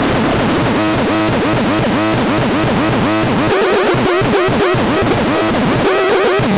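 Manticore Supersonic 24S siren sounding a fast warbling tone, its pitch sweeping up and down several times a second, with a stretch of slower wavering in the middle.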